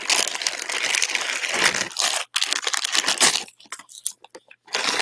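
Clear plastic bag crinkling and rustling as it is handled, then a few small separate clicks near the end.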